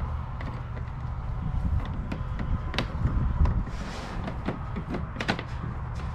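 A fish-finder transducer cable being coiled by hand, with scattered light clicks and a brief rustle as it is handled, over a steady low rumble.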